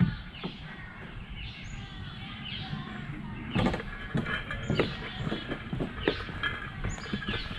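Songbirds chirping and singing on all sides, joined about halfway through by a hiker's steady footsteps crunching along a trail, roughly one to two steps a second.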